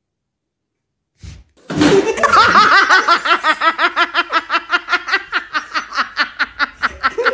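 A person laughing hard in a long run of quick, high-pitched "ha" pulses, about six a second, starting after a second and a half of silence and slowly tapering off.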